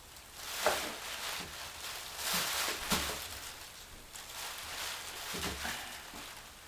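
Rustling and handling noises from gloved hands working through a box's contents: a few brief, scratchy rustles about a second in, around two to three seconds in, and again near the end.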